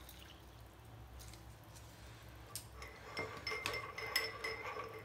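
A metal teaspoon stirring tea in a porcelain cup, clinking against the cup's sides in a quick run of about four clinks a second from about three seconds in, after a couple of single taps.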